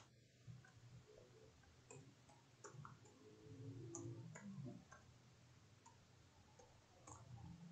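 Faint, scattered computer keyboard keystrokes: single irregular clicks as a command is typed.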